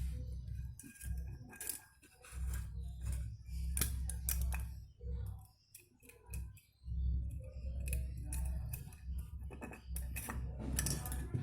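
Clicks and clinks of small metal parts and tools being handled, scattered irregularly, over an intermittent low rumble that comes and goes in blocks of a second or so.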